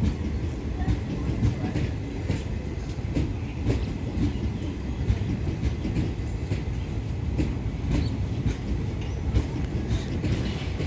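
Indian Railways passenger express coaches rolling past on the track: a steady low rumble of wheels on rails with irregular sharp clicks and knocks as the wheels pass over the track.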